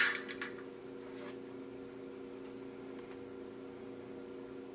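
A hiss that dies away in the first half second, then a steady low electrical hum with a couple of faint ticks.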